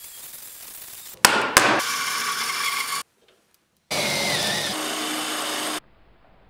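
Workshop tool sounds in quick succession: two sharp hammer blows a third of a second apart, then about a second of steady tool noise. After a short break an electric drill runs for about two seconds as a twist bit bores into the work.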